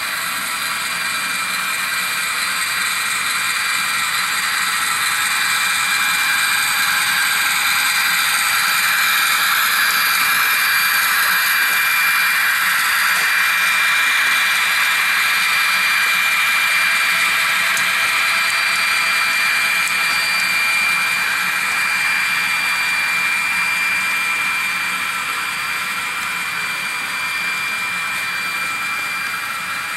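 HO-scale model diesel locomotives and freight cars running past on the track: a steady high hum and rolling noise with a few held tones, swelling as the locomotives pass and easing off as the cars follow.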